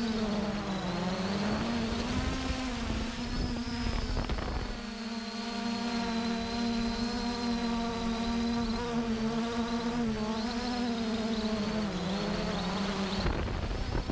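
A flying insect buzzing close by: one steady droning buzz whose pitch wavers and dips briefly a few times.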